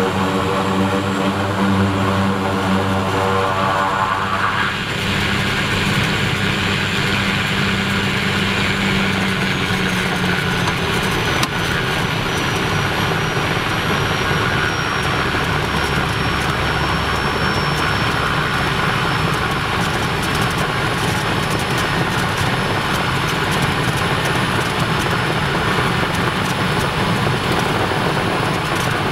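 Pilatus PC-6 Porter's engine and propeller heard from inside the cabin during the landing roll. An even propeller drone gives way about five seconds in to a steadier rushing engine noise, with a faint high whine slowly falling in pitch.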